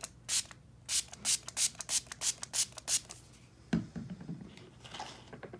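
Grooming brush raked in quick, even strokes through a timberwolf's thick coat, about three strokes a second, pulling out its shedding undercoat. A low thump follows partway through.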